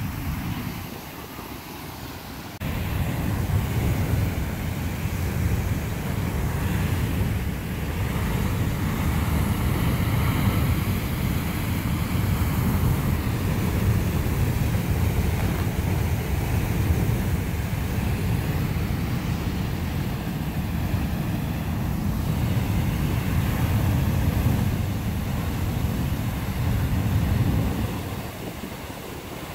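Fan and Mortar Geysers erupting: a steady roar of water and steam jetting from the vents, heavy in low rumble. The rumble comes up sharply about three seconds in and drops away near the end.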